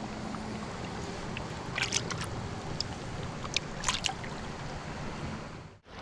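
Stream water running steadily, with a few brief sharp clicks or splashes about two and four seconds in; the sound cuts off abruptly just before the end.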